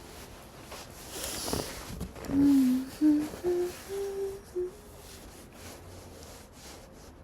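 A man's voice humming a run of five or six short closed-mouth notes that step upward in pitch, after a short breathy noise about a second in.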